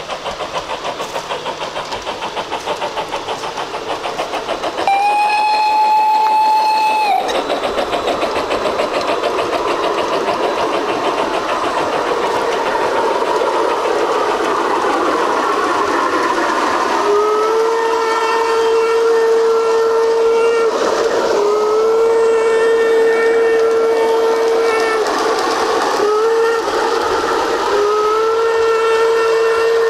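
G-scale model trains running on garden track, wheels rolling and clicking quickly over the rail joints. A sound-equipped locomotive gives one short high whistle about five seconds in, then from about seventeen seconds a lower whistle sounds long, long, short, long, the grade-crossing signal.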